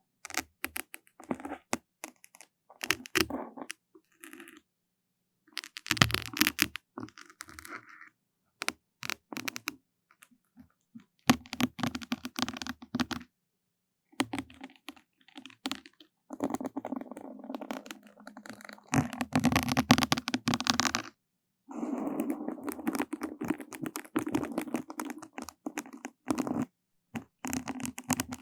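Close-miked ASMR trigger sounds: crackling, scratching and rubbing in irregular bursts of a few seconds, separated by short silences.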